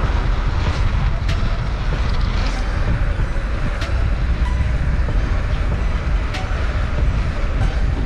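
Wind rushing over the action-camera microphone and mountain-bike tyres rolling on asphalt, a steady heavy rumble, with a few sharp clicks and rattles from the bike.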